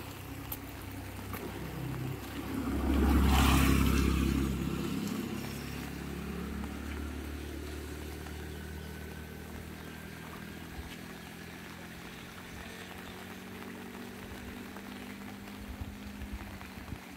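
A motor vehicle passing close by on a wet road, loudest about three to four seconds in, then its engine sound fading away.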